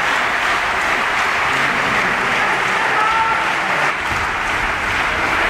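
Theatre audience applauding steadily during a curtain call, a dense even clapping with no break.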